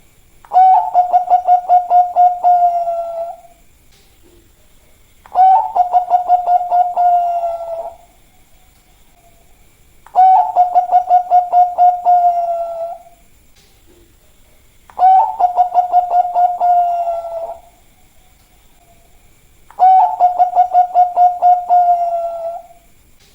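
A Bangkok-type zebra dove (perkutut) singing its cooing song five times, about every five seconds. Each phrase opens with a quick run of stuttering notes and ends in a long held coo that falls slightly in pitch.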